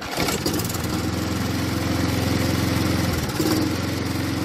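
Briggs & Stratton engine of a Mountfield HP470 petrol rotary lawnmower, pull-started by its recoil cord and catching at once, then running steadily. About three seconds in its speed sags briefly and picks up again.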